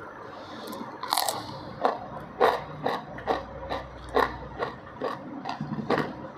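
Raw cucumber bitten and chewed close to the microphone: a quiet start, then from about a second in a quick run of crisp, irregular crunches, the first bite the loudest.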